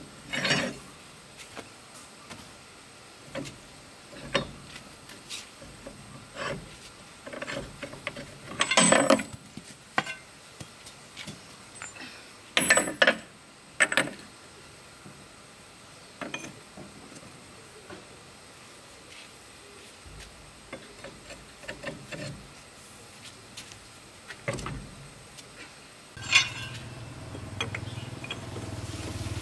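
Scattered metal clanks, taps and clinks of a wheel brace and loose lug nuts as the nuts are worked off a truck wheel hub. Near the end a low rumble sets in and grows louder.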